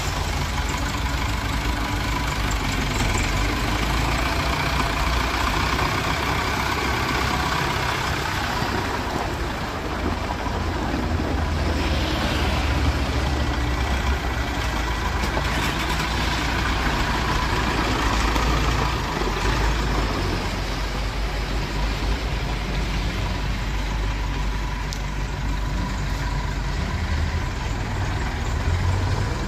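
Allis-Chalmers 6080 tractor's 93 hp diesel engine running steadily as the tractor is driven slowly.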